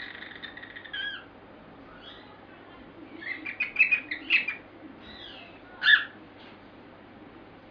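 Pet bird trying to whistle. A held whistle dips in pitch at about one second, a run of quick chattering chirps follows in the middle, and there is one short sharp call near the end.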